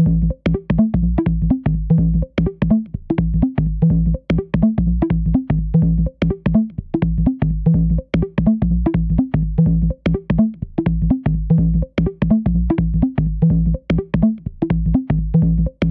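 Deep-tech electronic track: a steady drum-machine beat of sharp percussion hits over deep, pulsing synth bass, in a pattern that repeats every couple of seconds.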